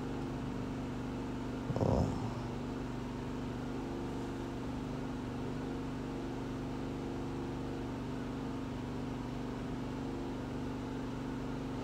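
Steady low machine hum made of several held tones, unchanging throughout, with one short sound about two seconds in.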